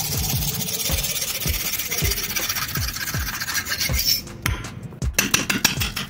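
A thin metal blade rasping back and forth against the cement-plaster wall beside a pipe stub. About five seconds in it gives way to quick hammer blows on a cold chisel, chipping the plaster away around the pipe. Background music with a steady beat runs underneath.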